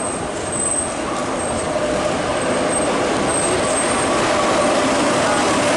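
Double-deck Ouigo TGV high-speed train rolling into the station along the platform: a steady rumble with a thin, high squeal that comes and goes.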